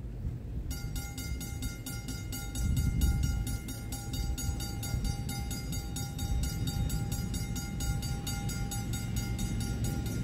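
Railroad crossing bell at a wig-wag signal starts ringing about a second in, with rapid, even strikes and a steady ringing tone. A low rumble runs beneath it and swells briefly around three seconds in.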